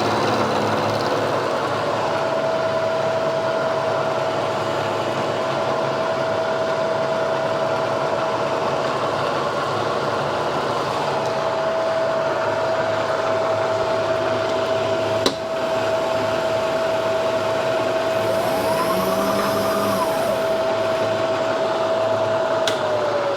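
Milling machine running with a steady motor whine while the cutter slowly cuts a flat on a steel drill rod. Near the end there is a click and the whine falls in pitch as the spindle winds down.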